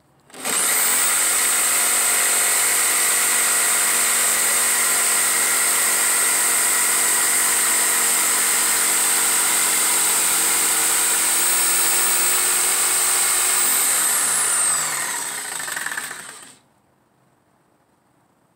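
Ridgid corded jigsaw starting up and cutting through a thin wooden panel at steady full speed for about fourteen seconds, then released and winding down, stopping about sixteen seconds in.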